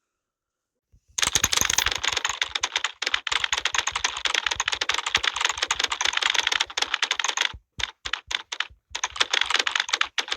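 Computer keyboard typed on fast, a dense run of key clicks starting about a second in, with a few short pauses around the eighth second.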